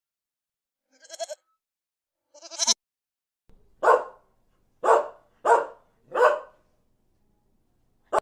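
A dog barking four times in short, separate barks, after two brief, higher-pitched animal calls.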